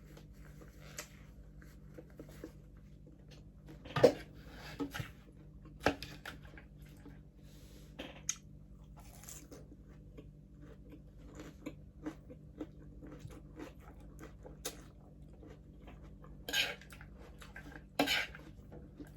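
Close-up chewing and crunching of crispy pata, deep-fried pork knuckle with crackling skin: scattered short crunches and clicks, the loudest about four and six seconds in and twice near the end.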